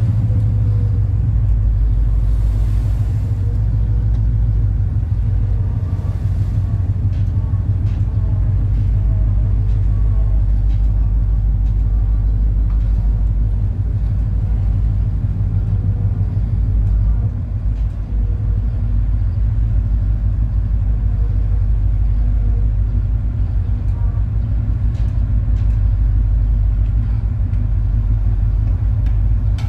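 Steady low rumble of a high-speed passenger ferry's engines, heard from inside the passenger cabin.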